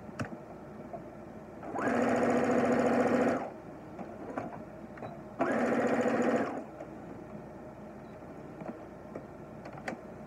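Electric home sewing machine running in two short bursts of stitching through fabric, the first about a second and a half long, the second a little over a second, with a few light clicks between and after.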